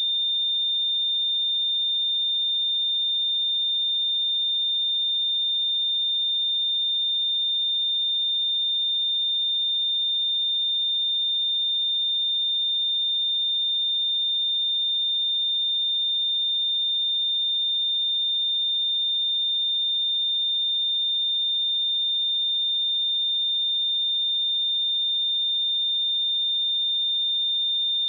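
A pure 3615 Hz sine test tone held at a constant pitch and level: a steady, high-pitched whistle-like beep.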